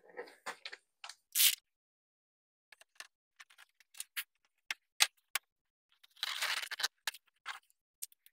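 Scattered light clicks and taps of hands handling balloons and small decorations, with a brief rustle about a second and a half in and a longer rustle near the end.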